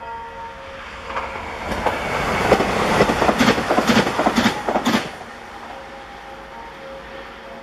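Passenger multiple-unit train passing at speed: a rush of wheel-on-rail noise that swells from about a second in, is loudest between two and five seconds with a run of sharp clacks as the wheels go by, then drops off suddenly and fades.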